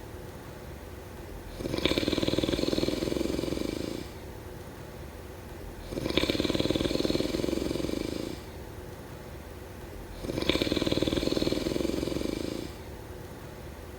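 A sleeping person snoring in a slow, regular rhythm: three long, rattling snores, one about every four seconds, with quieter breathing between them.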